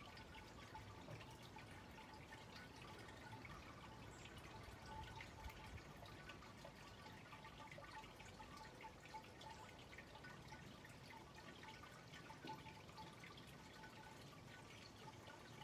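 Near silence: faint outdoor ambience with scattered small ticks and a faint steady tone.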